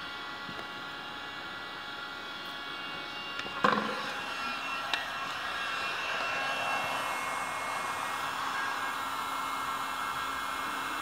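Electric heat gun blowing steadily, a hiss with a faint whine in it that grows a little louder after a sharp clunk about four seconds in.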